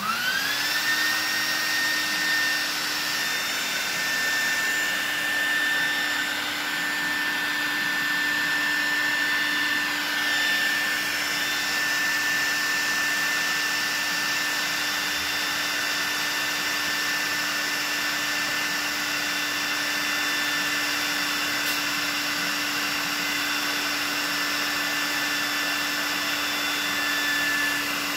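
Electric air pump switched on, its motor spinning up in pitch within about a second and then running steadily with a hum and high whine as it blows air into an inflatable paddling pool.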